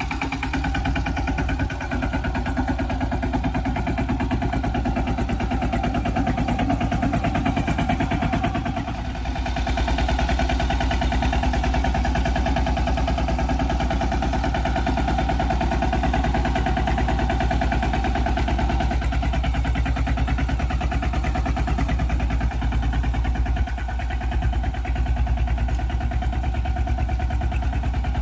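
Mini tractor engine running steadily under the load of a seed drill, with even, rapid firing pulses. The sound dips briefly about nine seconds in and again a few seconds before the end.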